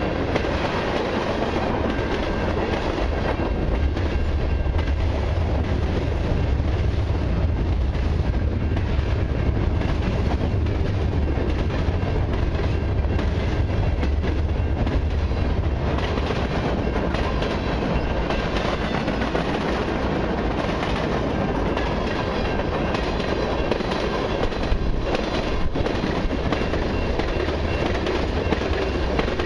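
A freight train's cars rolling past: steel wheels clattering over the rail joints under a steady deep rumble, with scattered clanks from the tank cars, gondolas and covered hoppers.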